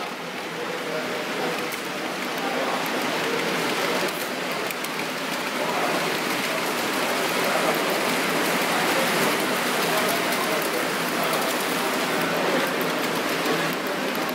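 An H0-scale model passenger train running on the layout's track: a steady, rain-like rolling rush of wheels on rail that grows louder over the first two seconds and then holds, with faint scattered clicks.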